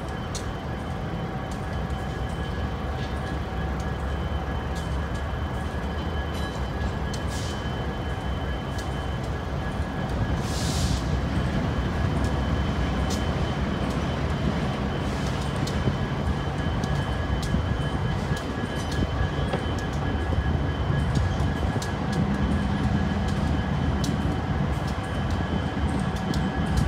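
Long Union Pacific intermodal freight train rolling slowly past: a steady rumble of the cars with many short clicks, a brief hiss about ten seconds in, and a little louder from then on.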